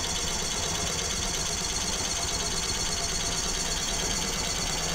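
Small hot-air Stirling engine model running steadily at speed, its pistons and bearing-mounted flywheel making a fast, even mechanical rhythm.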